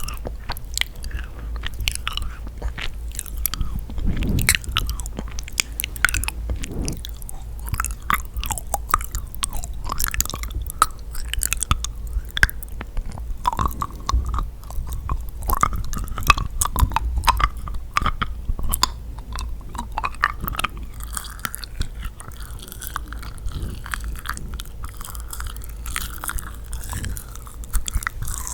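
Close-miked chewing and biting of yakgwa, a sticky honey-soaked fried Korean cookie: a continuous run of small wet, sticky clicks and smacks.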